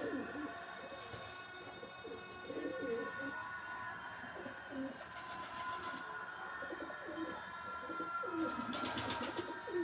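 Domestic pigeons cooing, repeated low rolling coos, with a brief rustling burst near the end.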